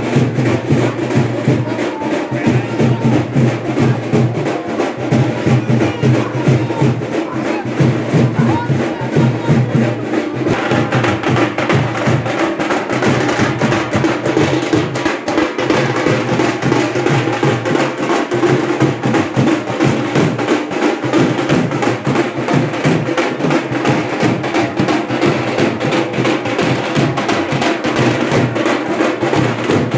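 Loud music driven by drums and percussion, a dense run of beats that does not let up.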